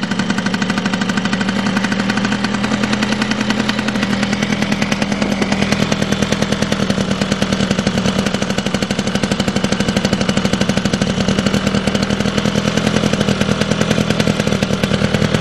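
Yamaha Cute CN50 scooter's 50cc two-stroke single-cylinder engine idling steadily, a fast, even popping from the exhaust.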